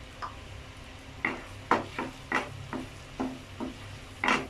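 Chopped garlic sizzling in melted butter in a frying pan, stirred with a wooden spatula. About a second in, short scraping strokes of the spatula against the pan begin, about two a second, with the loudest stroke near the end.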